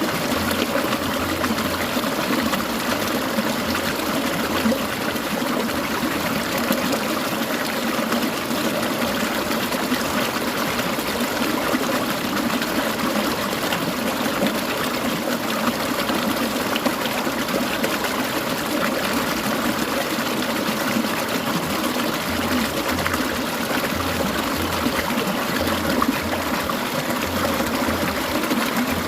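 Clear mountain stream babbling and trickling over rocks, a steady, unbroken rush of water.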